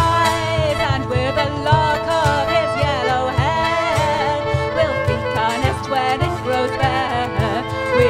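Live folk band playing an instrumental break: a bowed fiddle carries a wavering melody over a steady hurdy-gurdy drone, with guitar, bass and a low, even beat on a cajon.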